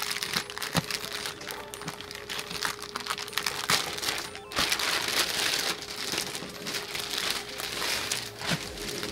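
Thin clear plastic wrapping crinkling as it is torn open and peeled off a cardboard figure box by hand. It is loudest about halfway through.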